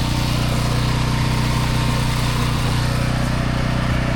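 A pressure washer's gas engine running at a steady speed, with a steady hiss over it.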